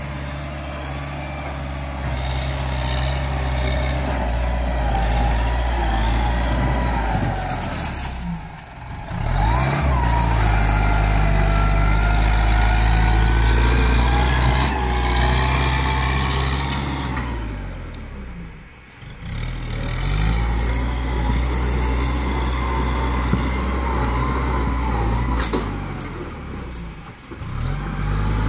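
Farm tractor engine running steadily under load as it pulls a disc harrow through dry ground, with a wavering whine above the engine. The sound drops away briefly three times: about a third of the way in, at about two-thirds, and near the end.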